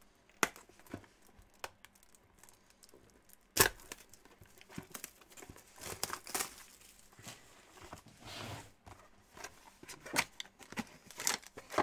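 A sealed trading card box being unwrapped and opened: its plastic wrap and cardboard crinkling and tearing in quiet, scattered crackles, with sharp snaps about half a second and three and a half seconds in and a longer rustle near the eight-second mark.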